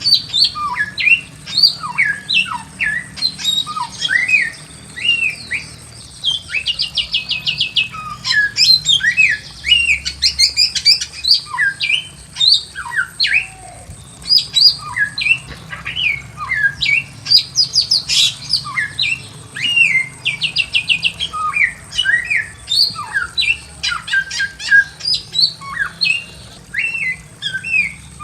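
Bare-throated whistler (samyong) singing nonstop: a fast, varied stream of short whistled notes sliding up and down, broken by quick trills.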